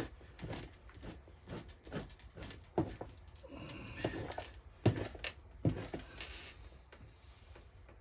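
Knife blade scraping fat off a beaver pelt in short, repeated strokes at an uneven pace, with a couple of longer drawn scrapes about halfway through.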